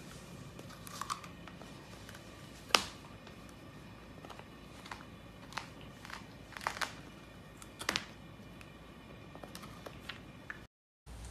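Sparse clicks and taps as a dachshund moves about and sniffs at a hard floor, with one sharper click about three seconds in, over a faint room hiss.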